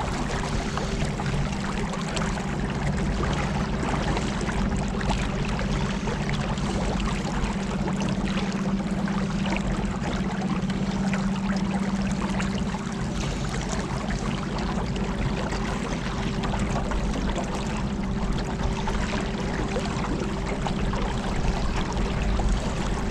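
Motorboat under way: the engine runs with a steady hum while water rushes along the hull.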